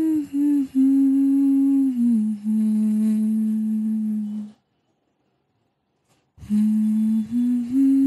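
A voice humming a slow tune of long held notes that step down in pitch. It breaks off into silence for about two seconds past the middle, then comes back with notes stepping up again.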